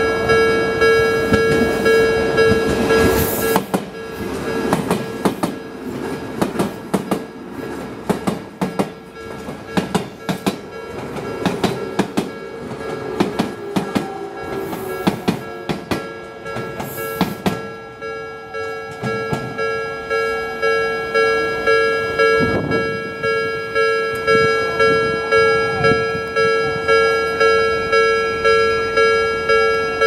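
Japanese level-crossing alarm ringing in a steady, rapid repeating clang. An Odakyu electric train passes over the crossing, its wheels clattering over the rail joints for roughly the middle half, while the alarm keeps ringing.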